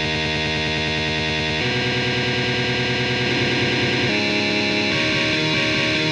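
Distorted electric guitar playing a fast post-black-metal riff of steady eighth-note double-stops over a droning low note, with the chord changing about every bar.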